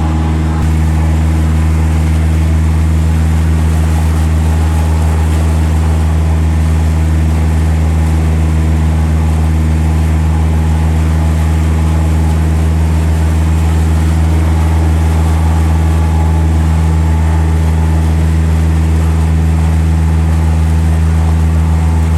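Boat engine running steadily: a loud, unchanging low drone with a deep hum.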